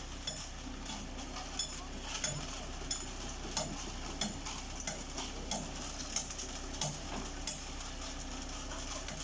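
Mini concrete mixer truck running: a steady low hum with a sharp metallic tick repeating evenly about every two-thirds of a second.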